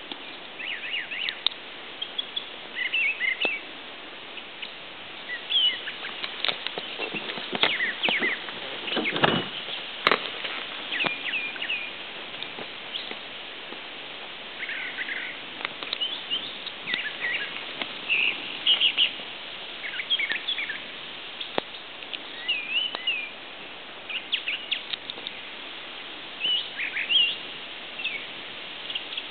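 Wild birds singing and chirping in short, varied calls throughout, over a steady background hiss. About nine seconds in there is a brief low thump or rustle, followed a moment later by a single sharp click.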